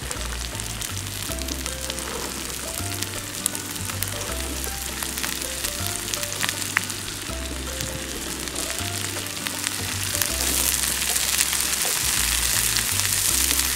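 Sliced browned onions and green peas sizzling in oil in a frying pan, the crackle growing louder in the last few seconds. Background music with a stepping bass line plays throughout.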